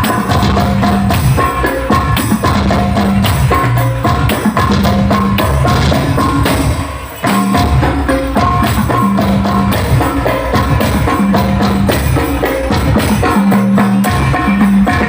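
Hadroh (sholawat) percussion music played loud through a large sound system: rhythmic frame-drum and tambourine-like strokes over sustained low notes, with a brief dip about seven seconds in.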